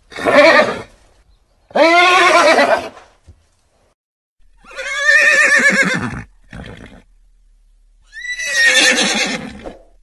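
Horse whinnying: four loud whinnies, each lasting about a second or more, with a short extra call right after the third.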